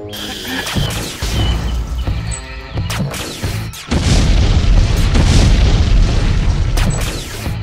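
Explosions over action-film background music: a few sharp bangs about three seconds in, then a big blast about four seconds in whose heavy rumble lasts about three seconds, with more bangs inside it.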